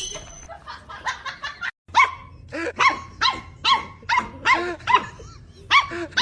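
A dog barking over and over: a run of faint, quick barks, then after a brief break a string of louder barks at about two to three a second.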